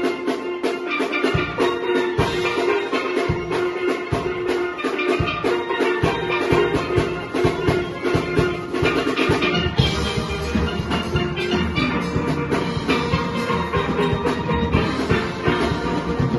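Steel orchestra playing a soca tune: many steelpans sounding quick chiming melody and chords over percussion that keeps a steady beat. The low end fills out about ten seconds in.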